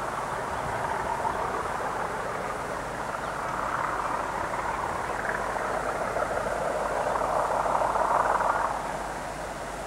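Distant diesel train running past, a steady noise that grows louder and then falls away sharply near the end.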